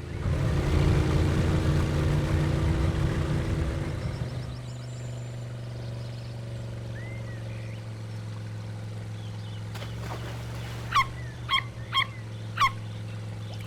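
Cartoon boat motor sound effect: a loud surge over the first few seconds, settling into a steady low engine hum. Four short, high chirps come close together near the end.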